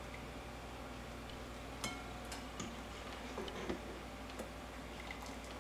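Scattered light clicks and taps of a metal spoon against a cooking pot and a bowl as boiled dumplings are scooped out, about half a dozen over a few seconds, above a faint steady low hum.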